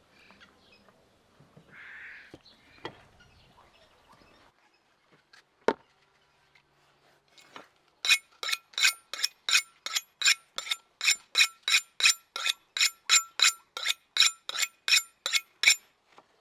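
A kitchen knife being sharpened by stroking it quickly along the blade of a cleaver: a steady run of short metallic scrapes, about three or four a second, each with a ringing tone. About halfway in, before the strokes start, there is a single sharp knock.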